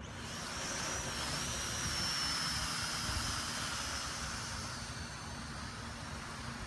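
UDI toy quadcopter's small electric motors and propellers whining as it hovers overhead: a high, slightly wavering whine that grows louder about half a second in and eases off again in the second half.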